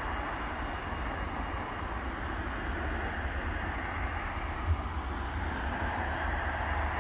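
Siemens Combino tram in motion: a steady rumble and running noise, with one short knock about two-thirds of the way through.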